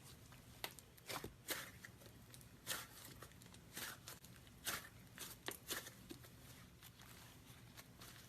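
Slime being squished and pressed by hand, making irregular, fairly faint sticky crackles and pops.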